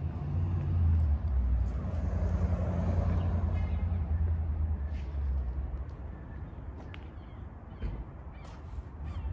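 Outdoor street ambience dominated by a low, uneven rumble of wind on the microphone, with a vehicle passing about two to three seconds in.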